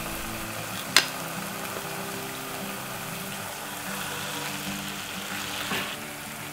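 Marinated pork pieces sizzling steadily as they sear in a pan of hot oil with fried shallots and garlic, with one sharp click about a second in, over soft background music.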